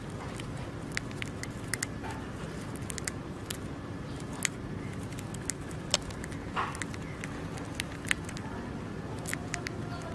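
A hamster nibbling a piece of food, heard as small, irregular crunching clicks and crackles, over a steady low background hum.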